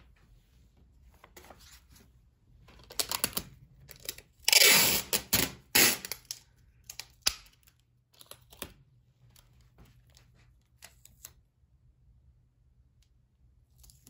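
Loose, old book pages handled by hand: scattered paper rustles, with a louder burst of rustling and crinkling lasting about a second and a half a little before the middle, then a few lighter touches.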